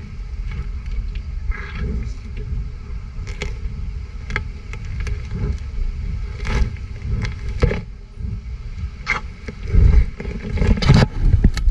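Rhinoceros sniffing and snuffling at a pumpkin close to the microphone: short huffs of breath every second or so over a steady low rumble. They grow louder and heavier near the end as it mouths and pushes against the pumpkin.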